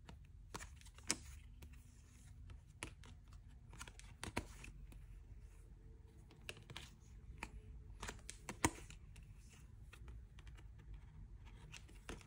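Quiet handling of stiff paper cards: irregular soft clicks and taps as the cards are picked up, flipped and set down, with a few sharper taps.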